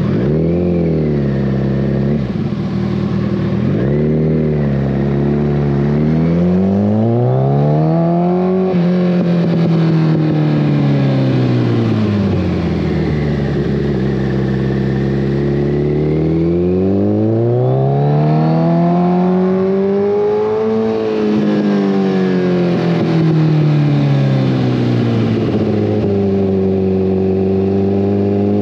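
2014 Kawasaki ZX-14R's inline-four running through a full Brocks Alien Head 2 exhaust, revs climbing and falling as the throttle is worked. The pitch climbs and drops off sharply about nine seconds in, then sinks slowly, climbs again and eases to a steady cruise near the end.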